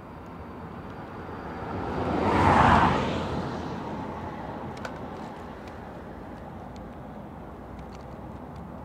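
A car passes on a nearby road, swelling to a peak about two and a half seconds in and then fading, over the steady rush of river water.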